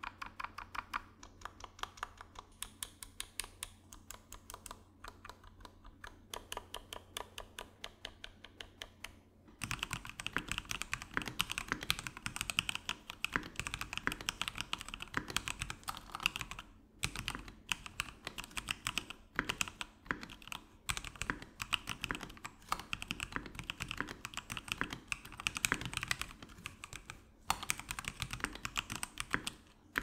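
Fast typing on mechanical keyboards: lighter, quieter clacking for about the first ten seconds, then an abrupt change to a louder, deeper-sounding board, with another brief break near the end.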